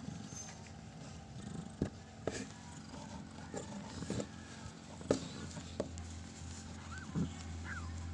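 Persian mother cat purring steadily while giving birth, with scattered clicks and rubbing as a newborn kitten is wiped, and a few short high squeaks near the end.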